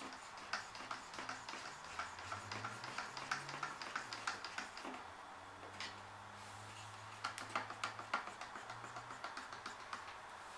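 Acrylic pour paint being stirred in a cup: irregular light clicks and taps of the stirring stick against the cup's sides, a few a second, with a lull in the middle.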